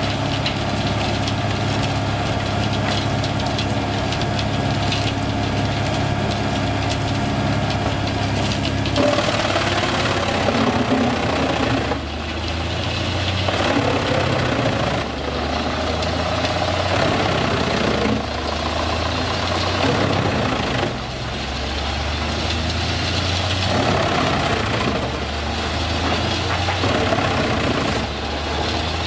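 Fendt 939 tractor running a tractor-mounted wood chipper. At first it is a steady engine drone. About nine seconds in, the chipper starts chewing through logs, and the sound turns rougher and uneven, with brief drops every few seconds as each log goes through.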